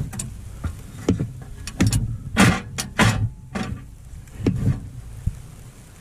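Handling noises of camping gear being worked on by hand: irregular knocks, scrapes and rustles, the loudest a pair of sharp knocks between two and three seconds in.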